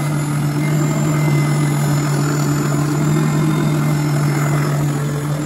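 Oscillating spindle sander running with a steady hum while its sanding drum grinds the finger choil of a knife blade held against it.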